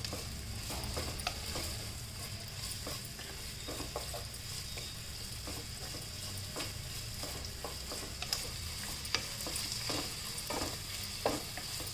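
Sliced onions sizzling in hot oil in a non-stick frying pan on a high gas flame, with a steady hiss. A wooden spatula stirs them, scraping and tapping the pan in short irregular strokes.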